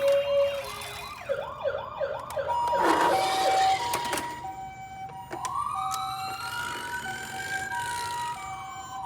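Several toy ambulance sirens sounding at once. A fast warbling yelp fades out in the first two seconds, a two-tone hi-lo siren repeats throughout, and a slow wail rises and falls in the second half. There is a short rush of noise about three seconds in.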